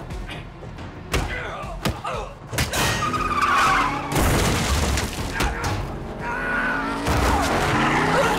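Action-film car-chase sound mix: tyres skidding and car engines running, with repeated hard impacts and breaking glass over background music.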